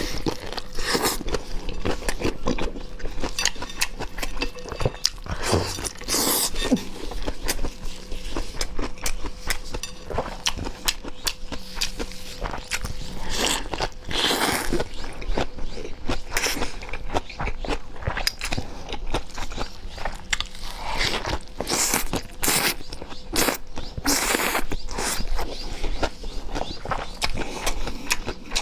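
Close-miked eating: a person biting and chewing liangpi rolls (cold-skin noodle rolls), many short sharp mouth clicks with several louder bites scattered through. A faint steady hum runs underneath.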